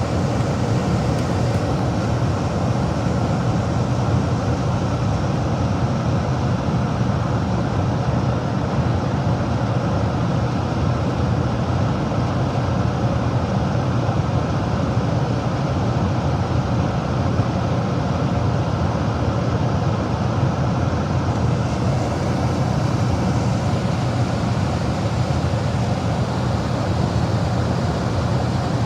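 Gas furnace running under test: a steady, even rumble of the burners and blower, unchanging throughout.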